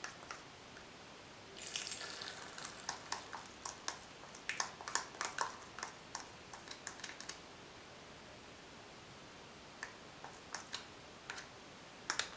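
A small plastic spoon scraping and clicking against a small plastic bowl and tapping onto a large metal spoon as a creamy filling is scooped out. A brief scrape comes about two seconds in, then a run of quick, irregular clicks and taps for about five seconds, and a few scattered taps near the end.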